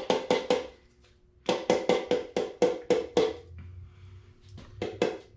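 Repeated sharp taps of a hammer handle on a piston top, knocking the piston a little way down its cylinder bore to reach the rod bearing. About four taps a second, in three short runs with brief pauses between.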